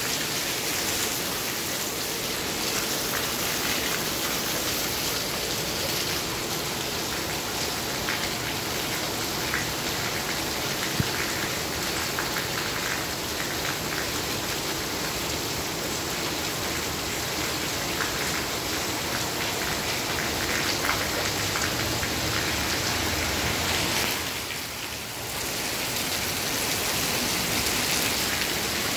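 Steady rain on a gas station's canopy roof, with runoff pouring from the canopy downspouts onto the pavement: a constant hiss of water that dips briefly near the end.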